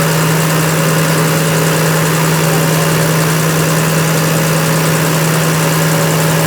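A machine running steadily and loudly with a constant hum, having switched on just before.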